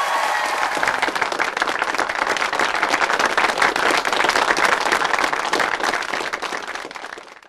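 Crowd applauding, a dense steady clapping that fades out near the end.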